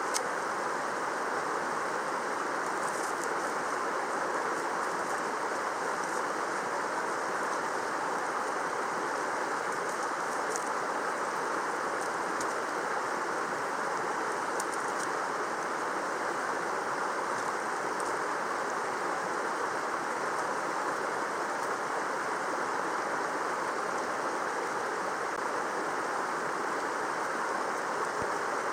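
Mountain stream flowing: a steady rush of water, with a few faint ticks now and then.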